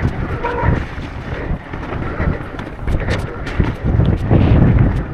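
Wind buffeting the microphone of a camera on a mountain bike riding fast down an enduro trail, over a low rumble from the tyres on rough ground. Scattered sharp clicks and rattles from the bike and trail run through it, and the rumble swells about three seconds in and again near the end.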